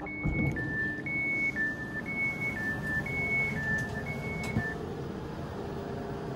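Two-tone door warning signal of a ČD InterJet coach (Siemens Viaggio Comfort), an electronic beep alternating high and low about once a second, the pattern sounded while the passenger doors close. It stops a little before five seconds in.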